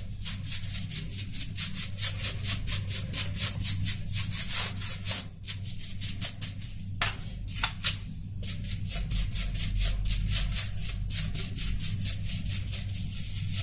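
Brush bristles sweeping rapidly back and forth across the bare, keycap-less plate of a Razer Cyclosa membrane keyboard, about four strokes a second, pausing briefly a couple of times, over a steady low hum.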